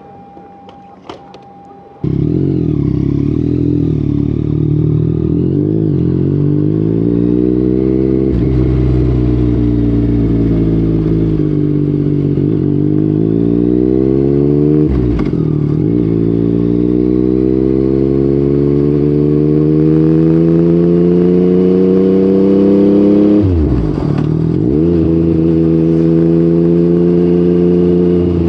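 Yamaha MT-09's inline three-cylinder engine through an Akrapovic exhaust, accelerating hard through the gears after a quieter first two seconds. The pitch climbs and then drops back at each upshift, several times over.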